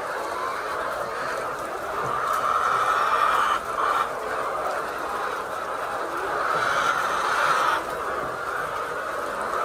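A flock of poultry calling continuously, swelling louder about two and a half seconds in and again around seven seconds.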